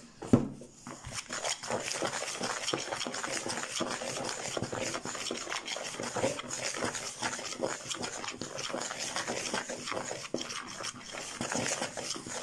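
Table knife stirring and cutting milk into crumbly pastry dough in a plastic mixing bowl: a continuous run of quick scraping and scratching strokes against the bowl and dough. A sharp knock sounds just after the start.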